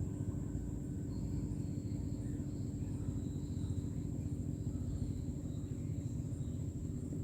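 A boat engine running steadily: a low rumble with a fine rapid flutter and a steady hum over it, plus a constant thin high whine.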